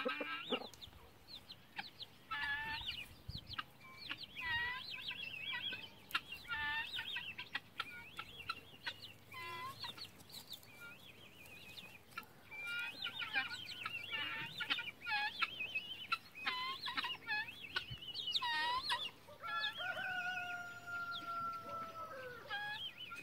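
Chickens clucking over food, many short repeated calls, with a rooster crowing once in a long drawn-out call near the end.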